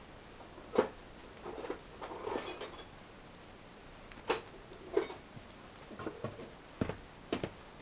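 Scattered light metallic clicks and clinks, about one a second, typical of steel wrenches being handled and picked through to find the right size.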